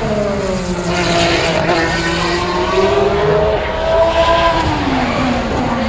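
Race car engine running hard on the circuit, its pitch rising and falling as the revs change.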